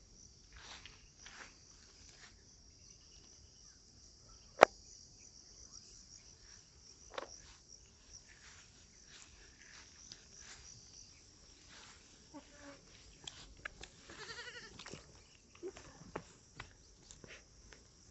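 A Boer goat bleats once about two-thirds of the way through, a wavering call lasting about a second, over a steady high insect drone. Scattered short clicks and rustles run throughout, and a single sharp click about four and a half seconds in is the loudest sound.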